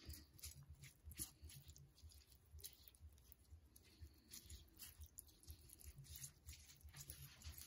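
Near silence: room tone with faint scattered clicks and soft low thuds.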